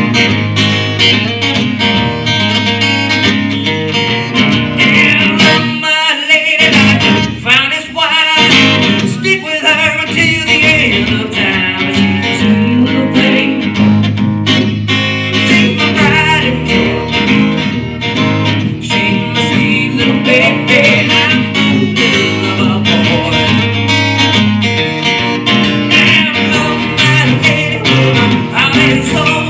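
Acoustic guitar played live through PA speakers in a country-style song, with a brief drop in the low notes about six seconds in.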